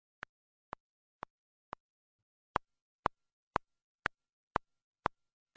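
Sharp, evenly spaced ticks, about two a second, over dead silence, like a clock or metronome. After a short gap about two seconds in they come back louder.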